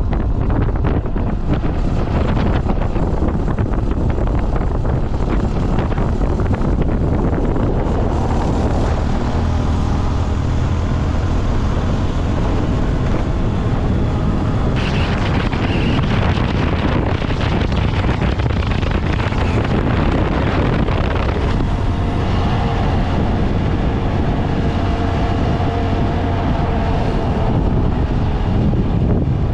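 Wind buffeting the microphone of a moving motorcycle, with the engine and road noise running steadily underneath; the noise changes in tone about halfway through.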